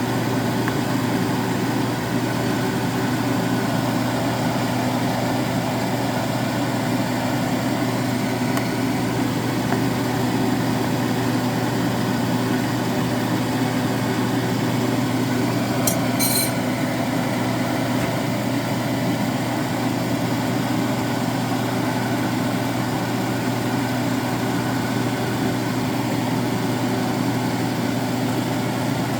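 A steady, unchanging mechanical hum, like a motor or engine running, with one brief sharp click about halfway through.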